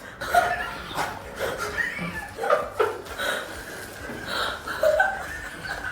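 A person laughing in short, repeated bursts.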